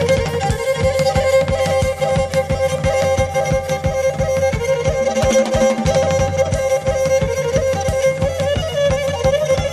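Instrumental Pontic Greek folk music: a Pontic lyra plays a wavering, ornamented melody over a steady drum beat.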